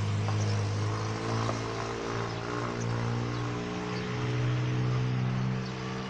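An engine running steadily, a low hum that wavers slightly in pitch.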